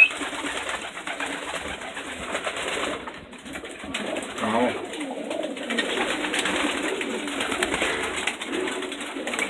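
Homing pigeons cooing continuously in a small loft, with a flutter of wings as one bird flaps off its perch near the start.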